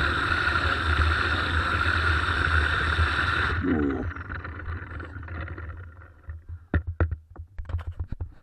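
SUNGOLDPOWER 2200 W electric pressure washer running loudly while spraying through a rotating wash brush on a car's bodywork. About three and a half seconds in, the spray stops abruptly and the motor winds down with a short falling whine. Scattered sharp clicks and taps follow near the end.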